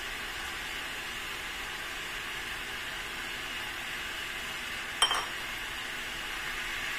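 Steady sizzle of pork and liver frying in a wok as pig's blood is poured in, with a single sharp clink of a ceramic bowl against the wok about five seconds in.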